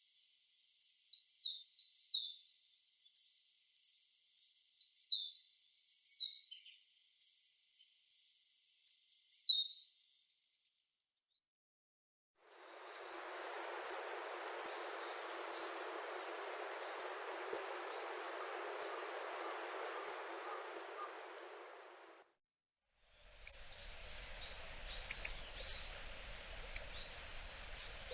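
Hawfinch giving short, sharp, high calls, many in quick succession for about ten seconds. After a pause comes a further series of single calls over a steady background hiss, and a few fainter calls near the end.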